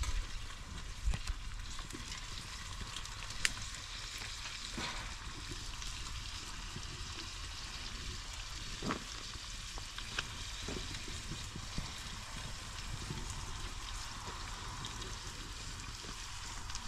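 Food frying in hot oil in a wide pan over an open wood fire: a steady sizzle, with a few sharp crackles scattered through it.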